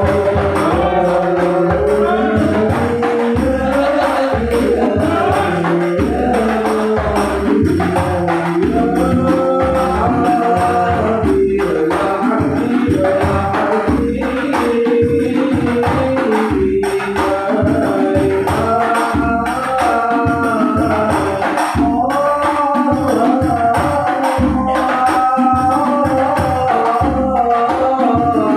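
Sholawat devotional singing with rebana frame-drum accompaniment: a sung melody carried over fast, steady interlocking hand-drum strokes and tambourine jingles.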